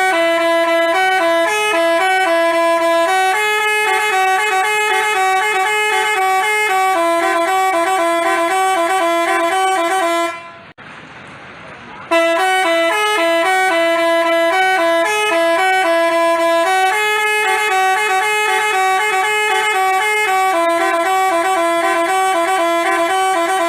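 Telolet basuri bus horn playing its multi-tone melody, the notes stepping up and down over a steady lower note. It breaks off abruptly about ten seconds in, and after a short pause the same tune starts again from the beginning.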